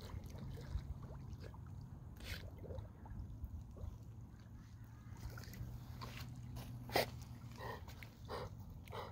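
English cream golden retriever splashing and gurgling in lake water as it dunks its head to dig at rocks, in short irregular bursts. A single sharp sound about seven seconds in, with more frequent bursts near the end, over a low steady hum.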